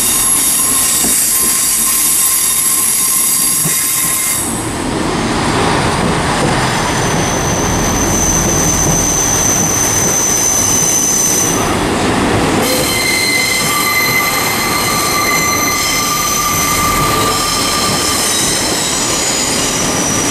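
Class 158 diesel multiple unit running slowly into the platform, its wheels squealing on the rails in several high, steady tones that break off and are replaced by new ones every few seconds. A low rumble of wheels and engines builds under the squeal about four seconds in.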